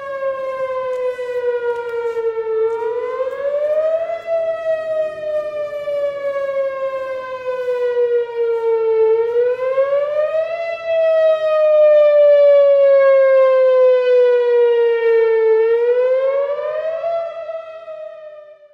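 Whelen WPS4004 electronic outdoor warning siren sounding a wail. The tone rises quickly, then falls slowly, repeating about every six seconds, and grows louder toward the middle. It fades out near the end.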